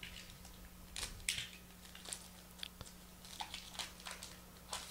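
Foil wrapper of a trading card pack crinkling and crackling in irregular bursts as it is handled and opened, loudest about a second in.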